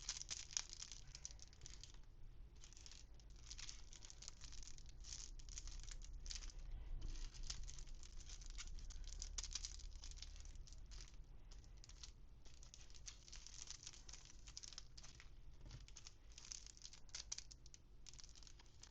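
Packaging being crinkled and rustled in quick, irregular handfuls, with small rattles, as toy accessories are unwrapped.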